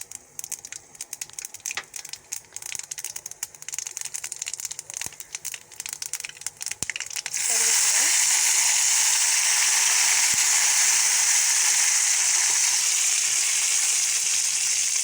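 Mustard seeds popping and crackling in hot oil in a pan. About halfway through, a loud, steady frying sizzle starts abruptly.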